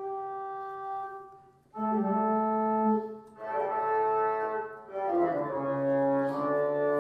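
Sampled pipe organ played through Hauptwerk software using recordings of the St Anne's, Moseley organ. A held note dies away, then three sustained chords follow, each lasting about a second and a half with short breaks between.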